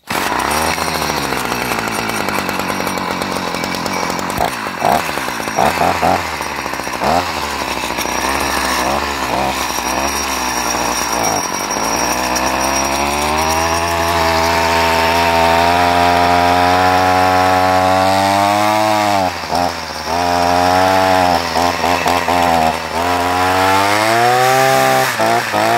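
Hecht 124R brush cutter's small two-stroke engine starting suddenly and running unevenly. Its speed rises and dips in quick blips at first, then it runs at higher revs and surges, sagging sharply once about two-thirds of the way through.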